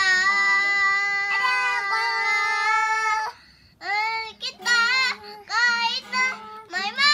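A young girl singing in a high voice: one long held note for about three seconds, a brief pause, then several shorter phrases that bend up and down in pitch.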